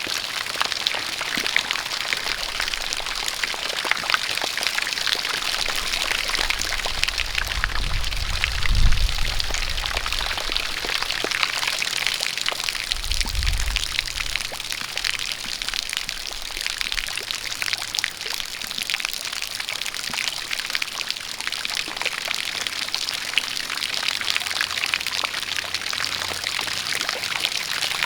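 Rain falling with a steady stream of water pouring and splashing, full of small drop ticks. A brief low rumble comes twice, about nine and thirteen seconds in.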